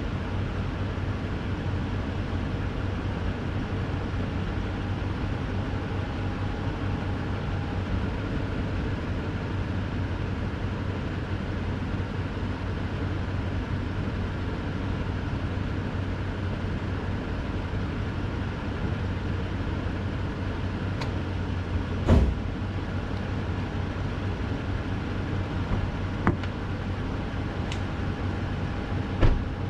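2018 Toyota Tundra's V8 running at low speed as the truck crawls over a rough off-road trail, a steady low drone. Three sharp knocks come in the last third, the first the loudest.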